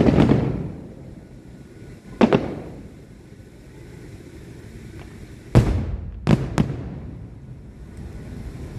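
Aerial firework shells bursting at a distance: a series of sharp booms, each trailing off in an echoing rumble. One comes at the start, another about two seconds in, then three closer together past the middle, the last two almost back to back.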